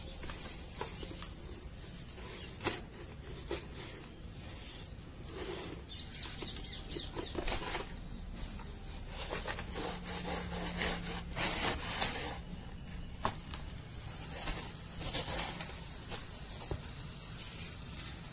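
Dry, dusty sandy dirt being squeezed, crumbled and sifted through fingers: irregular soft crunches and hissing trickles of falling grains.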